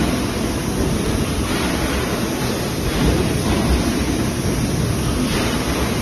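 Automatic empty-bottle bagging machine running: a steady rushing noise that swells slightly now and then.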